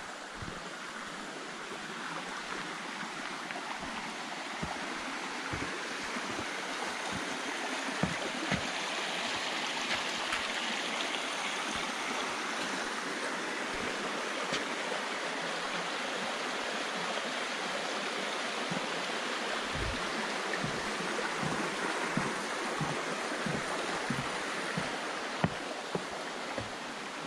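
Shallow rocky stream rushing, growing louder toward the middle and easing off near the end. Soft low footsteps thud along with it.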